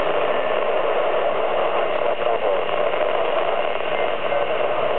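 Amateur radio transceiver's speaker giving a steady hiss of static while tuned to a satellite downlink, with a few faint, garbled traces of signal in the noise.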